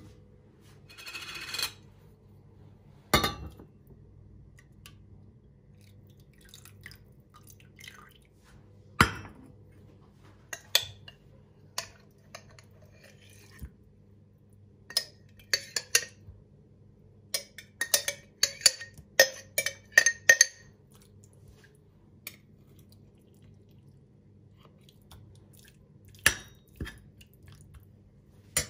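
Dishes, glassware and cutlery clinking and being set down, with scattered knocks and a quick run of ringing clinks between about 15 and 20 seconds in, over a low steady hum.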